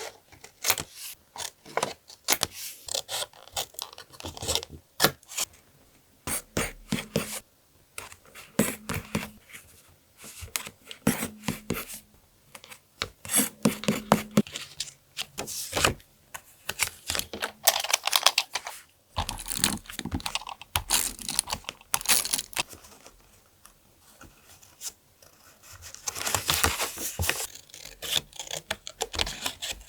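Paper and craft materials handled close to the microphone: irregular rustling, tearing and scraping of paper, broken by sharp taps and clicks, with short pauses between bursts.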